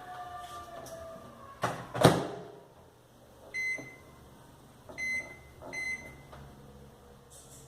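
Microwave oven being set going: the door shuts with two quick knocks, then three short high keypad beeps a second or so apart as the cooking time is entered, over a faint low hum.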